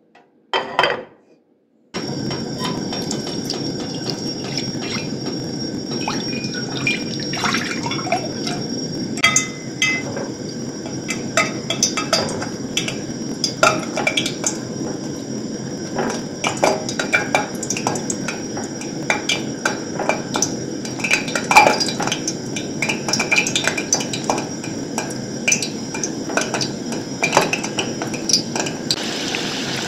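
A short clatter of a pot set down on a portable gas stove, then, from about two seconds in, hot oil sizzling steadily with frequent crackles and pops as breadcrumb-coated potato balls deep-fry.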